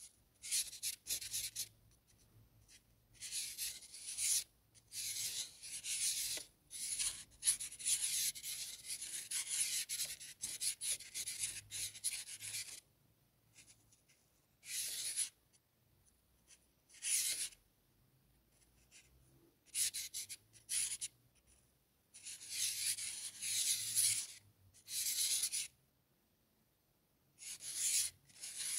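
Black felt-tip marker drawn across paper: scratchy rubbing strokes, in runs of a few seconds broken by short pauses.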